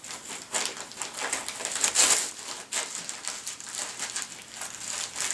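Christmas wrapping paper crinkling and tearing in irregular bursts as a black Labrador retriever chews and pulls at it, loudest about two seconds in.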